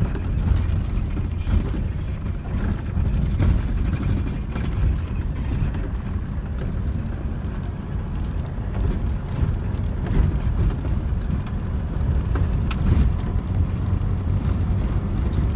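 Low, steady rumble of a vehicle in motion, with scattered short knocks.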